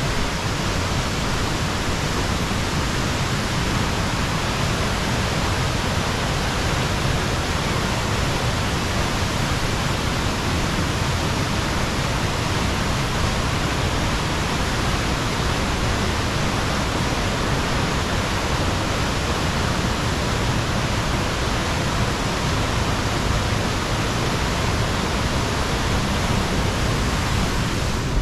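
Steady rushing of a creek and small waterfalls tumbling through a rock gorge.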